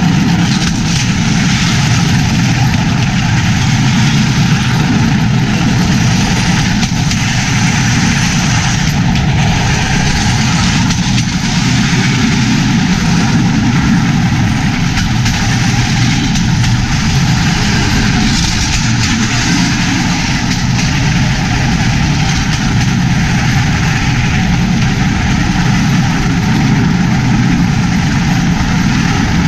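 Bamboo train (norry) under way on the rails, its small petrol engine running steadily: a loud, constant drone with an even rushing noise over it.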